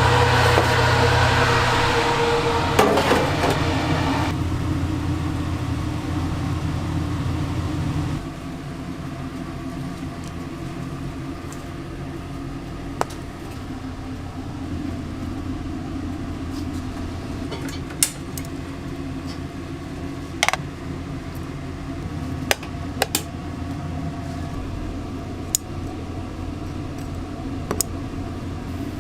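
A steady low mechanical hum, louder for the first eight seconds, with a high steady whine that stops about two seconds in and a scattering of sharp clicks and taps in the second half.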